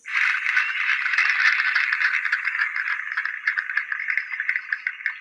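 Applause sound effect: a burst of clapping that starts suddenly, dense at first, then thins into scattered single claps toward the end.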